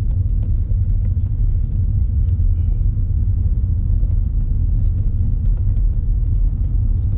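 Car driving along a road, heard from inside the cabin: a steady low rumble of tyres and engine.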